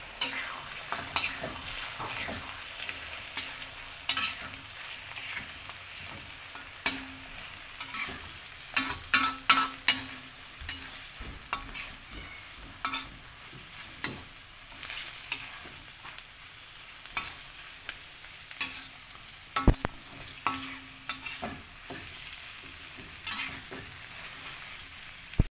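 Oyster mushrooms and egg sizzling in oil in a wok while a spoon stirs them, with frequent clicks and scrapes of the spoon against the pan and one louder knock about two thirds of the way through.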